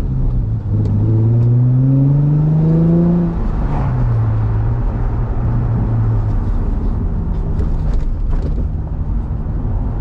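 Nissan 350Z's 3.5-litre V6 accelerating, rising in pitch for about three seconds, then dropping at a gear change and running steadily. Scattered knocks and clicks from the freshly welded rear differential, like someone shaking a bag of bolts on one side.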